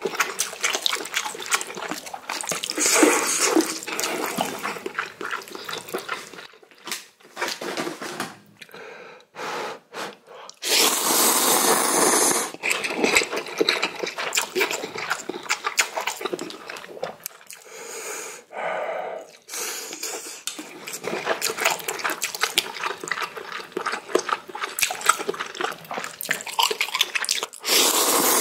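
Ramen noodles being slurped from a bowl of spicy broth, with wet chewing and smacking in between; a long slurp about eleven seconds in and another near the end.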